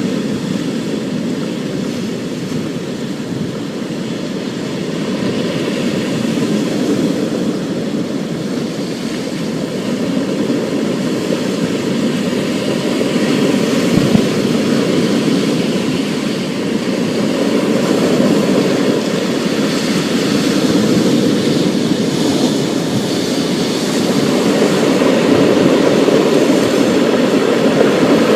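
Storm sound: a steady, deep rushing of rain and rumble that slowly grows louder through the second half.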